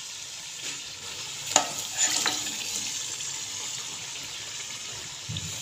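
Masala sizzling in a karahi as fried chicken pieces are added to it. There is a steady hiss, with a sharp knock about a second and a half in and a few smaller clatters just after.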